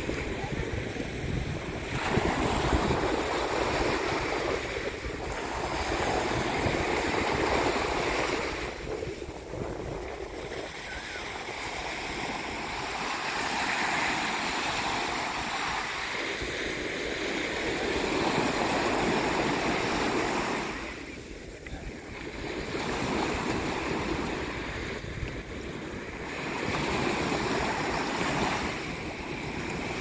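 Small sea waves breaking and washing up over sand. The surf swells and fades every few seconds, with wind buffeting the microphone.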